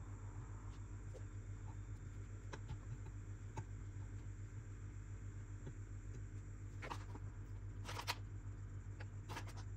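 Faint clicks and scrapes of a fork lifting slices of baked sweet potato and eggplant from a frying pan onto a plastic divided plate, with a few louder clatters in the last few seconds, over a low steady hum.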